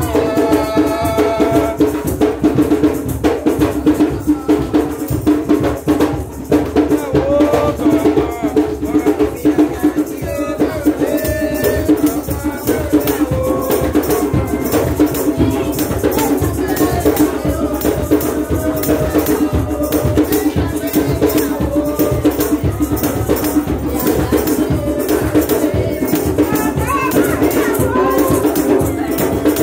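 Church congregation singing, accompanied by shakers keeping a steady rhythm.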